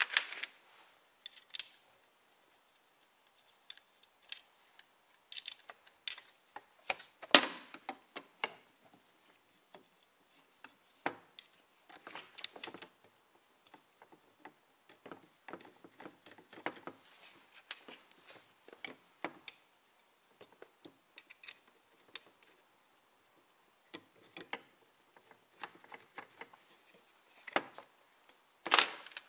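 Audi A6 wiper linkage assembly, an aluminium frame with linkage rods, being worked into place in the scuttle by hand. It gives irregular metallic clicks, knocks and light scrapes, with louder knocks about seven seconds in and near the end.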